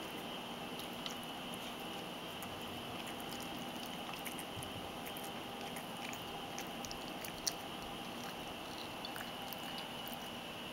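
A ragdoll cat crunching dry kibble topped with wet food: scattered short, crisp crunches, with one sharper click about seven and a half seconds in.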